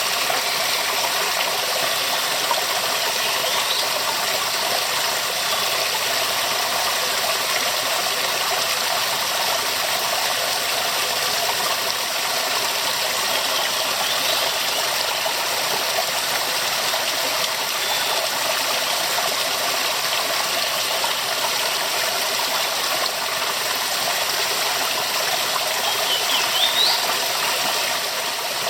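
Waterfall rushing steadily, a full, even roar of falling water with no change in level. Three faint short rising chirps sound high above it.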